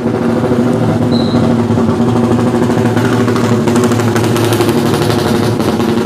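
An engine idling steadily, an even hum that holds one pitch throughout.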